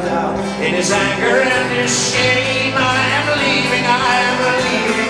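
Live acoustic band music between sung lines: acoustic guitar with a lap-played resonator guitar (dobro) sliding between notes.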